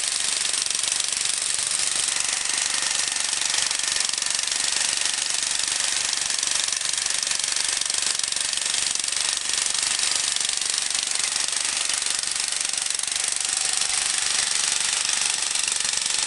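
Small air-cooled petrol engine of a Nichino S-series walk-behind cultivator running steadily under load with a fast, even rattle, its rotary tines working the soil to hill up cassava rows and cut weeds.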